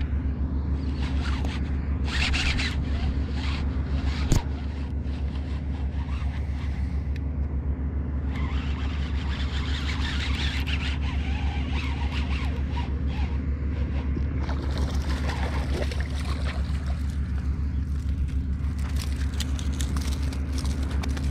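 A motor running steadily with a low drone, with intermittent rustling and scraping noises over it.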